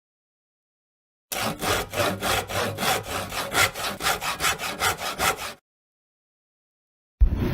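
Hand saw cutting through wood in quick, even back-and-forth strokes, about four or five a second. The strokes start about a second in and stop about two seconds before the end. Another loud sound starts abruptly at the very end.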